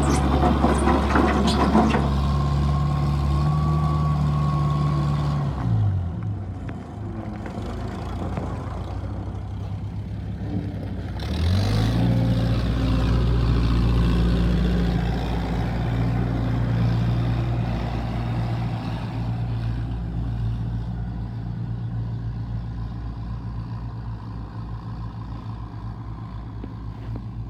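Bobcat 743 skid steer engine running at high revs, with some clatter in the first two seconds. It drops to idle about six seconds in, revs back up around twelve seconds, then runs steadily and grows gradually fainter.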